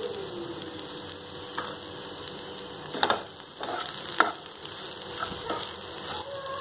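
Okra and onion pieces sizzling in a little oil in a nonstick frying pan, with a few sharp scrapes and knocks of a spatula against the pan as they are stirred, the clearest about three and four seconds in.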